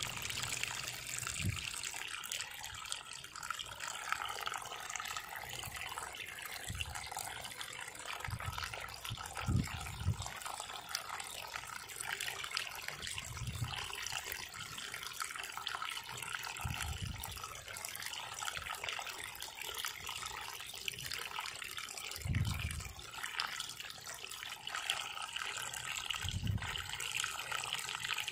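Groundwater flowing out of a borewell casing pipe on its own, with no pump, and spilling over the broken rim onto the ground: a steady splashing trickle. The bore overflows because heavy rains have raised the groundwater. A few short low thumps come now and then.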